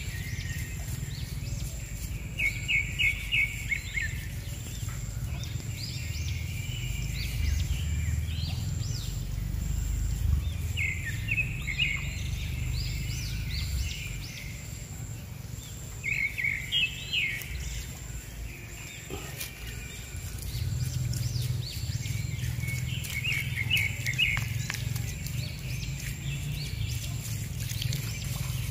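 Birds chirping in short bursts of quick repeated notes every several seconds, over a steady low rumble. Faint scratching of a small tool digging into wet potting soil.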